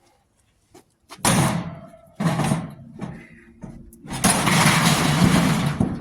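Scrap metal being handled and loaded: two loud clattering crashes about a second apart, then a longer clattering, scraping crash of about two seconds near the end.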